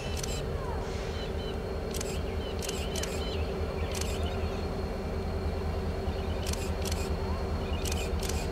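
Steady low engine hum with a constant mid-pitched drone, broken by short sharp clicks every second or so, several of them in pairs.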